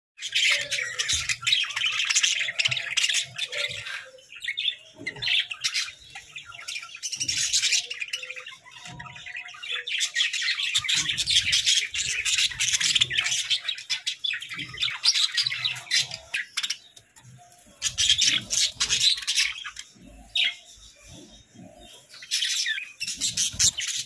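A flock of budgerigars chattering and warbling together: fast runs of chirps, squeaks and squawks, with a few short lulls.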